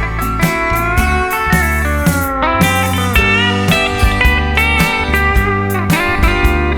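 Instrumental break of a country song: a guitar lead with notes that glide up and down between pitches, over bass and a steady beat of about two strokes a second.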